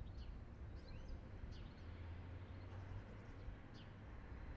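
Faint outdoor ambience: a few short, scattered bird chirps over a low, steady rumble.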